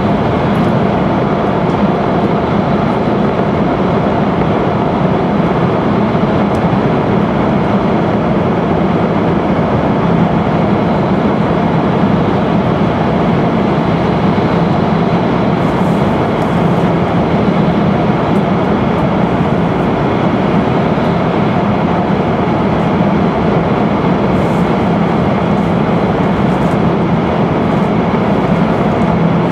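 E5 series Shinkansen running at speed through a tunnel, heard from inside the passenger cabin: a loud, steady rumble with a low hum underneath, unchanging throughout.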